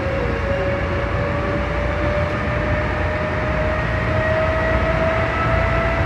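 Sanyo Electric Railway train running, heard inside the leading car: steady wheel-on-rail rumble with an electric motor whine slowly rising in pitch as the train gains speed.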